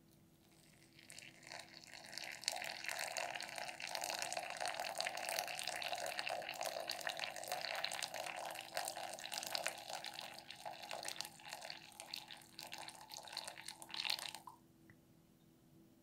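A thin stream of water poured from a kettle spout into a paper drip coffee bag over ground coffee in a glass mug, a steady trickling splash that builds up over the first two seconds and stops abruptly a second or so before the end.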